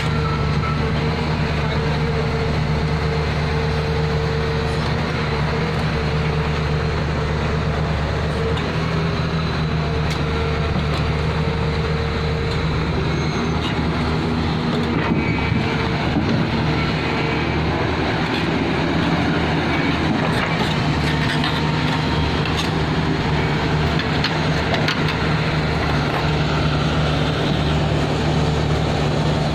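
Hydraulic excavator's diesel engine running steadily and continuously, its note shifting partway through.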